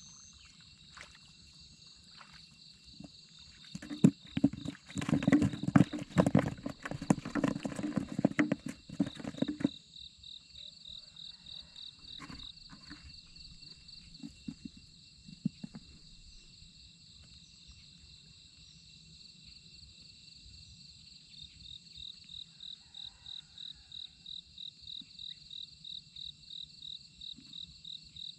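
Insects trilling steadily, with a chirp that pulses about three times a second in the second half. About four seconds in come several seconds of loud, close knocking and rustling, the loudest sound, with a few single knocks after it.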